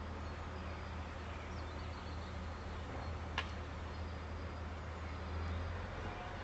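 Faint birdsong of a dawn chorus, a few high chirps over a steady low hum, with one brief sharp call about three and a half seconds in.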